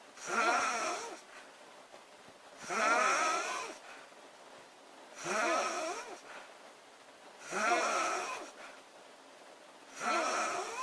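A girl snoring in a steady rhythm: five snores about two and a half seconds apart, each lasting about a second, with quiet in-between breaths. The last snore is cut off at the end.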